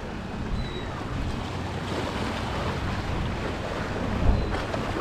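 Wind buffeting the microphone over a steady rush of sea noise, with one stronger gust about four seconds in.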